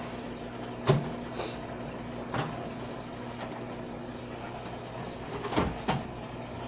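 A few sharp knocks and clacks, one about a second in, a softer one midway and two close together near the end, over a steady low hum.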